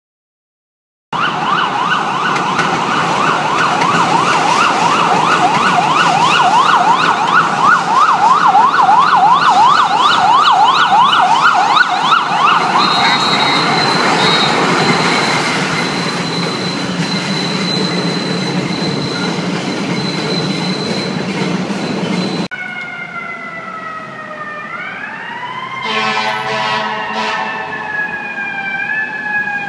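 Emergency vehicle sirens. An electronic siren yelps in fast repeating sweeps for about twenty seconds. After an abrupt change, a siren falls slowly in pitch, with a few short horn blasts about two-thirds of the way through.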